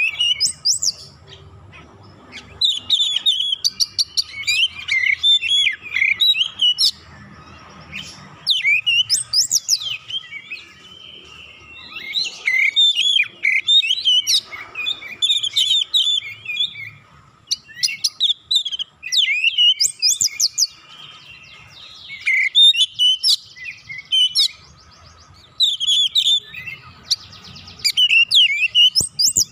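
Oriental magpie-robin singing: varied phrases of rapid whistles, trills and chirps, delivered in bursts a second or three long with short pauses between them.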